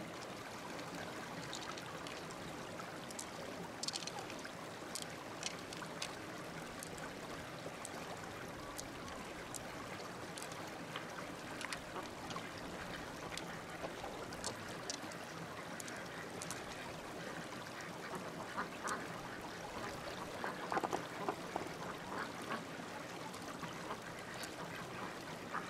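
Ducks quacking a few times, mostly in the second half, over a steady outdoor hiss with scattered small clicks.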